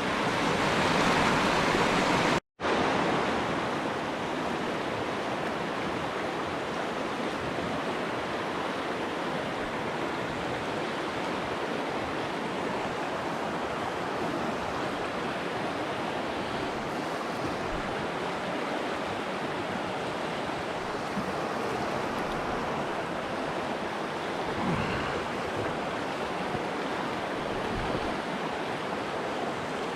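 Steady noise of a river's flowing water, with a brief dropout about two and a half seconds in.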